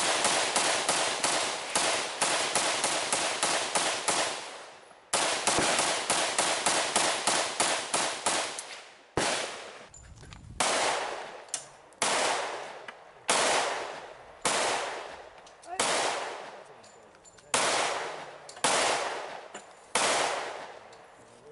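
A rifle fired in rapid strings of shots, several a second, with a short break near 5 s. About 9 s in it gives way to a handgun firing single shots, about one every 1.3 seconds, each trailing off in echo.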